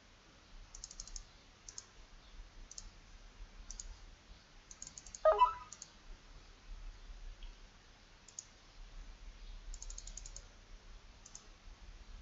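Computer mouse clicking, single clicks and quick runs of several clicks, with one louder brief knock about five seconds in.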